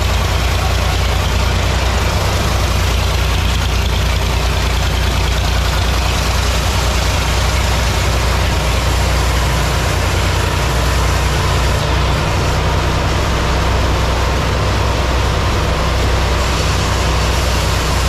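Sawmill's large vertical band saw and its drive running steadily: a loud, constant machine drone with a deep low hum.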